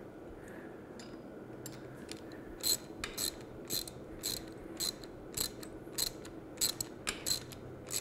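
Ratchet clicking in short strokes, about two clicks a second, starting about a second and a half in, as it snugs down the nylon lock nut on a belt grinder's idler wheel bolt.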